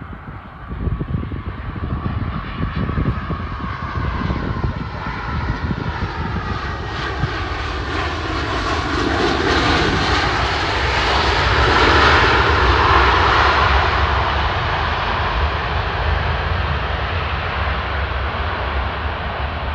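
Jet engine noise from an Airbus A320 landing and rolling out along the runway: it grows louder to a peak about twelve seconds in as the airliner passes, with a whine that bends in pitch, then eases off as it rolls away.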